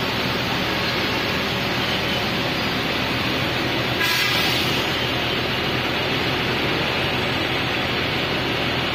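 Yutong Master coach's engine idling steadily under a constant rushing noise, with a brief louder moment about four seconds in.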